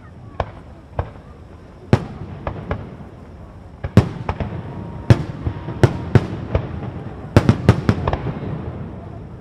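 Fireworks display: aerial shells bursting as a string of sharp bangs at irregular spacing over a low rumble, with a quick run of bangs close together late on.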